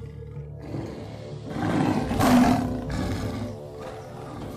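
Big-cat growling roar voicing a saber-toothed cat (Smilodon). It builds from about half a second in to its loudest just past two seconds, fades, then flares again briefly near the end.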